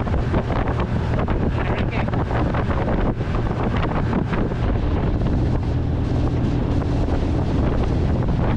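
Boat under way: a steady low engine drone under heavy wind buffeting the microphone, with water rushing past.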